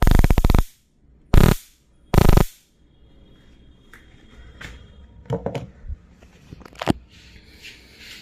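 Flashlight stun gun firing its electric arc: three loud crackling zaps in the first two and a half seconds, the first the longest. Quieter clicks and handling sounds follow.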